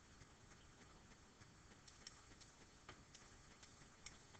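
Near silence with faint, irregular ticks of a stylus tapping on a writing surface as numbers are written.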